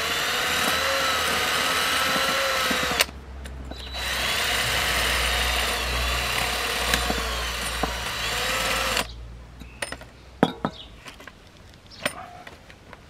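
Cordless drill-driver running twice, about three seconds and then about five, turning the screws of a metal engine coolant thermostat housing. A few light clicks and knocks follow near the end.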